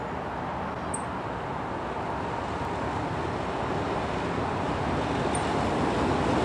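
GE Dash 9-40CW diesel locomotive's 16-cylinder engine approaching: a steady low rumble growing gradually louder as the train nears.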